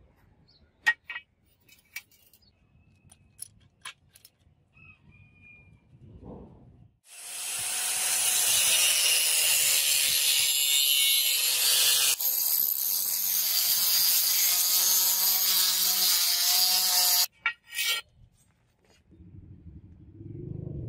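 Angle grinder with a cutting disc grinding a fuller groove along an iron sword blade, a loud steady grind with a high note that starts about a third of the way in, dips for a moment midway and stops abruptly about ten seconds later. A few light clicks and knocks come before it.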